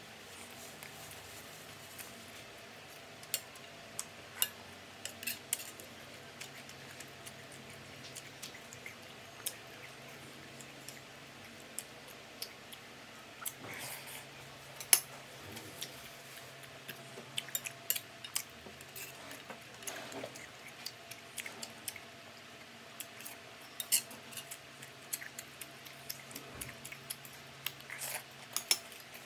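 A person eating crispy fried duck with rice: chewing, with scattered sharp clicks and taps against the plate, coming more often in the second half.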